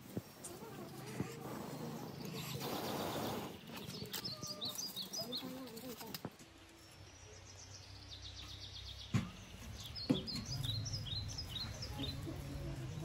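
Birds chirping in short, repeated high calls, over the rustle and crackle of dry kindling being fed to a small wood fire. Two sharp knocks come about two-thirds of the way through.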